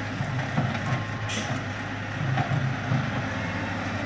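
Wheel loader's diesel engine running steadily while the machine tips a bucket of cassava roots onto a pile, with a brief hiss about a second in.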